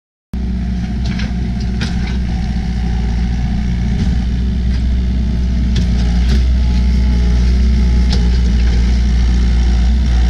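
Komatsu SK1020 skid steer's diesel engine running steadily and growing a little louder as the Bradco 75 skeleton rock bucket works into a rock pile, with a few sharp clanks of rock against the bucket. The sound cuts in abruptly just after the start.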